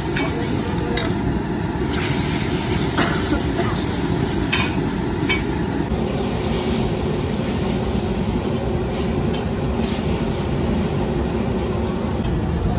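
Steady low rumble under a few sharp clinks and scrapes in the first five seconds: a steel ladle and stick knocking against a large iron kadhai as boiling sugar syrup is stirred.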